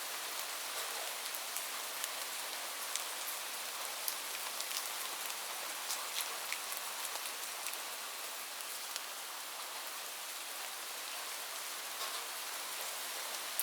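Steady rain falling, a constant hiss with many individual drops pattering and ticking on a surface.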